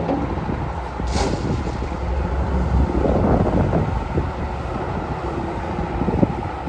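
Doosan DX350LC excavator's diesel engine running under hydraulic load as the boom and arm with a shear attachment are moved. The engine swells louder about three seconds in.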